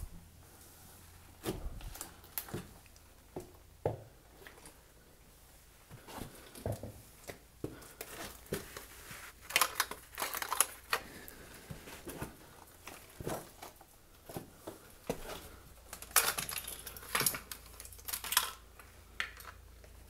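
A small aluminium camera tripod being handled and set up: scattered clicks and clacks of its leg clips and metal legs, with busier clattering and scraping around the middle and again near the end.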